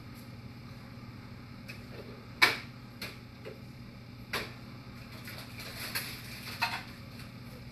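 A few scattered knocks and clicks of kitchen things being handled, the loudest about two and a half seconds in, over a steady low hum.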